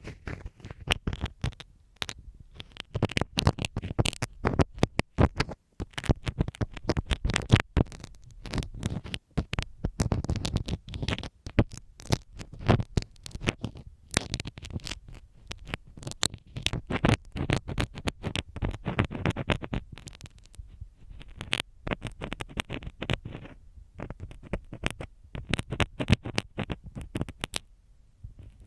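Close-up ear-cleaning triggers worked directly on a binaural microphone's ear: a dense, irregular crackle of scratches, clicks and rubbing strokes, with brief pauses about five and a half seconds in and near the end.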